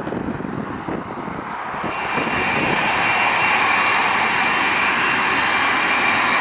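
Jet engines of a British Airways Boeing 767-300, Rolls-Royce RB211 turbofans, running on the runway. A lower rumble mixed with wind noise gives way, about two seconds in, to louder steady engine noise with a high fan whine.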